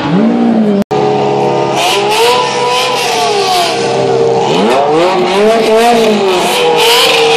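Supercar engine revving: its pitch climbs and falls in several blips, with a brief cut-out about a second in.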